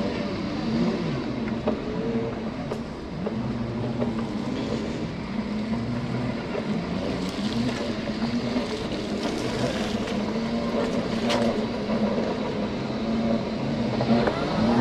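Segway x2 off-road self-balancing scooter riding along a dirt track: its electric drive gives a whine that rises and falls in pitch as the speed changes, over a steady rush of tyre and wind noise.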